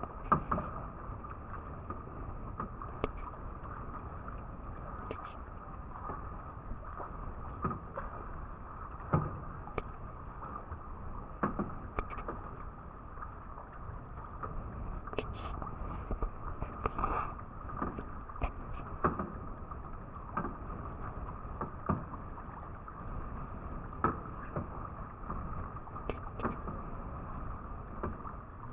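Kayak paddling: paddle strokes dipping and splashing in calm seawater, with sharp irregular knocks every second or two over a steady background of water and wind.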